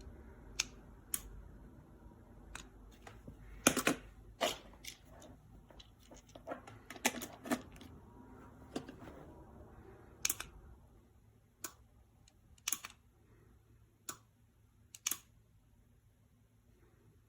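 Irregular sharp clicks and knocks, a couple of dozen in all, thickest in the middle and thinning out toward the end, over a faint low hum.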